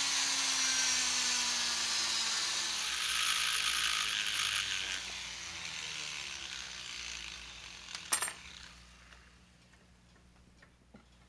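Small handheld rotary tool running against the flared axle ends of a diecast toy car, grinding them off: a steady whine whose pitch slowly drops, with grinding noise over it. The tool fades out about six seconds in, and a single sharp click follows near eight seconds.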